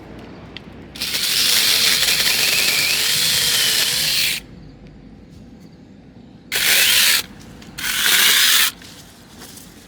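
Battery-powered 6-inch mini chainsaw with an 850 W brushless motor running in three bursts as it trims small sprouts: one of about three seconds, then two short ones about two seconds later.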